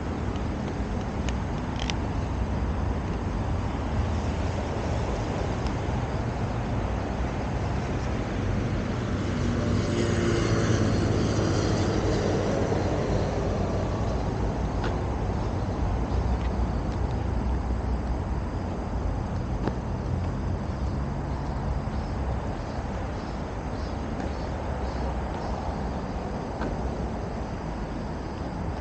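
Steady low outdoor rumble, swelling louder with some hiss about ten seconds in, with a few faint clicks.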